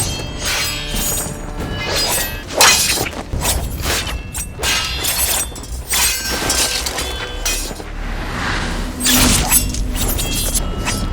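Swords clashing again and again in a fight, sharp ringing clangs one after another, over dramatic background music.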